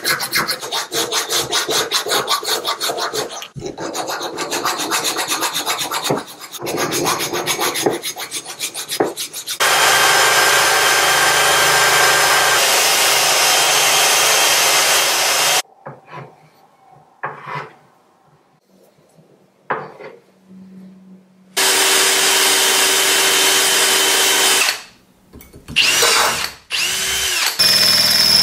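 A thin hand file rasping in quick strokes inside the hole of a cast-iron vise base. After about nine seconds a cordless drill takes over, running steadily for several seconds, then in short spurts, then in longer runs again as it bores into hardened steel file stock.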